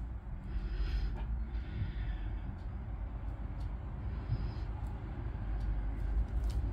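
Plastic scratcher scraping the coating off a lottery scratch card in a few short strokes, over a steady low rumble.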